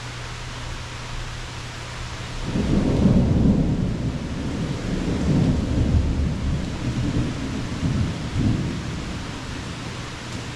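Thunder rumbling over steady rain: a low rumble builds about two and a half seconds in, swells several times and dies away near the end.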